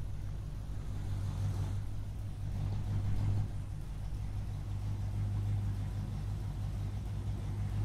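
Muscle-car engine sound idling with a steady deep rumble, swelling slightly about three seconds in.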